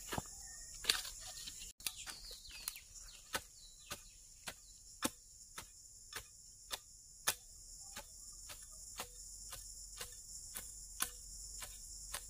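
Insects chirring steadily, with a sharp click repeating evenly about twice a second.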